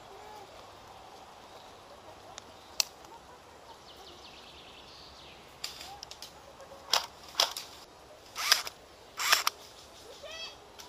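Airsoft guns firing: one sharp crack about three seconds in, then a run of single shots and short bursts from about six to nine and a half seconds in.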